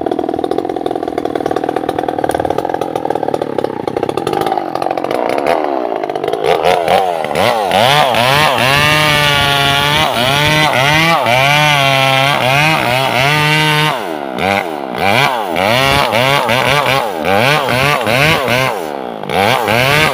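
Two-stroke chainsaw cutting through the base of a sengon laut trunk. It runs at a steady pitch for the first few seconds, then from about six seconds in its pitch swings up and down again and again as the throttle is worked and the bar bites into the wood.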